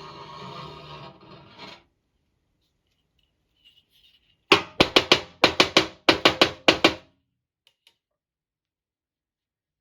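A steady hiss that stops about two seconds in, then a quick run of about a dozen sharp knocks with a hollow, slightly pitched ring, in a burst of about two and a half seconds.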